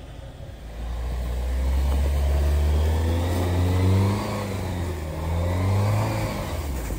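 A 4x4 vehicle's engine revs up about a second in and keeps running hard, its pitch rising and falling, as it works through deep snow during a stuck-vehicle recovery.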